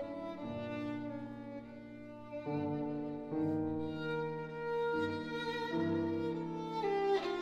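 Violin and Steinway grand piano playing classical music together: the violin holds long bowed notes that change every second or so over the piano accompaniment.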